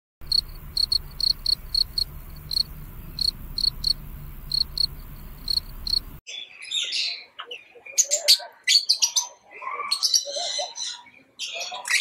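Field cricket chirping, short high chirps of one pitch at about three a second. About six seconds in it cuts off, and lovebirds chatter with varied chirps and squeaks.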